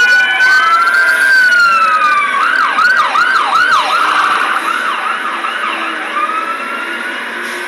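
Emergency vehicle sirens passing on the street: a slow rising-and-falling wail, then rapid yelping sweeps starting about two and a half seconds in, several sirens overlapping and slowly fading.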